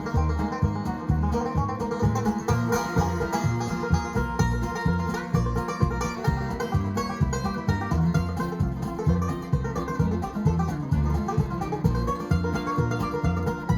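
A string band playing an instrumental passage: fiddle, guitar, upright or electric bass and percussion, over a steady pulsing bass beat.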